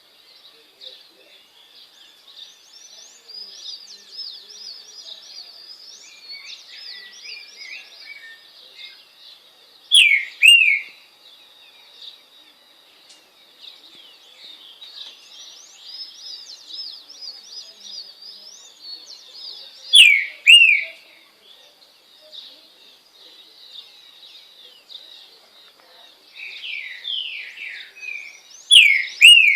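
Green-winged saltator (trinca-ferro) singing loud phrases of downward-sliding whistles, one roughly every ten seconds (three in all, the last one longer). Between phrases there is faint continuous high chirping from other small birds and a thin steady high tone.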